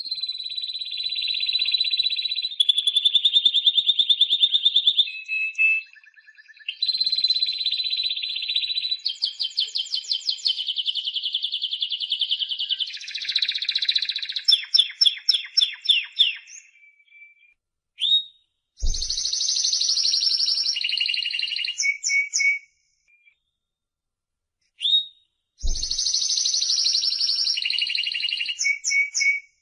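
Spanish Timbrado canary singing: long runs of fast rolled trills and rattling notes, one phrase running into the next, broken by two short pauses in the second half.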